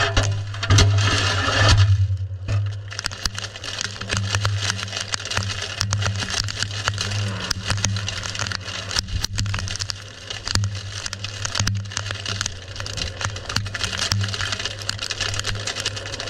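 Storm noise on the microphone: rushing wind full of dense crackles and knocks, over a steady low hum.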